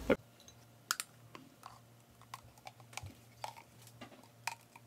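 A utensil scraping and tapping against a plastic Nutribullet blender cup while thick frozen-banana nice cream is scooped out: a scattering of light, irregular clicks and knocks.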